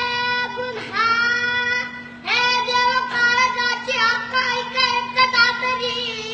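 A boy singing solo in a high voice, holding long notes with sliding, ornamented pitch in several phrases. A faint steady hum runs underneath.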